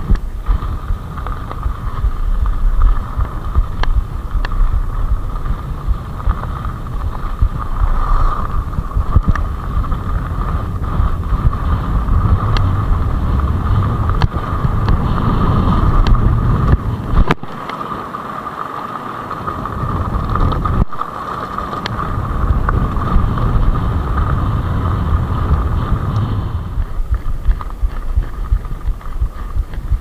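Commencal Meta HT hardtail mountain bike rolling fast down a gravel track: wind buffeting the microphone, tyres running over loose gravel with a steady hum, and the bike clicking and rattling over bumps. The wind rumble eases briefly for a few seconds past the middle.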